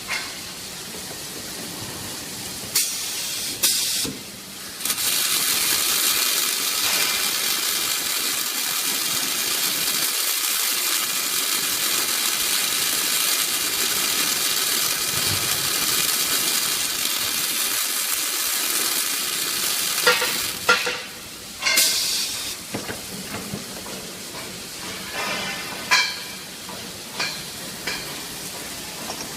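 Welding arcs of an automatic cuplock ledger welding machine crackling and sizzling. There are two short bursts, then a steady run of about fifteen seconds, then two more short bursts. After that come scattered metallic clicks and knocks from the machine.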